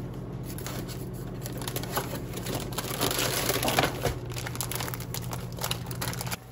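Plastic pasta bag and cardboard box being handled: crinkling and rustling, busiest and loudest around the middle, over a steady low hum.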